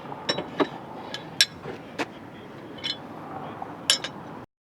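Scattered sharp metal clinks and clicks, irregularly spaced, from working a car jack as it is lowered under an SUV. The sound cuts off suddenly near the end.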